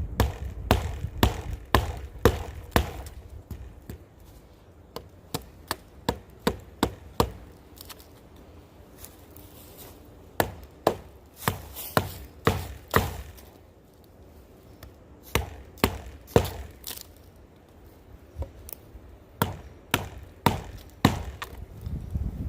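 Wooden baton striking the spine of a pocket knife, driving the blade into a dead standing tree: sharp knocks in runs of five to eight, about two to three a second, with short pauses between runs.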